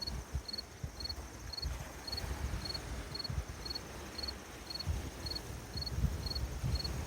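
A cricket chirping steadily, about two short, high chirps a second, with a fainter insect buzz behind it. Over an uneven low rumble of the lakeshore.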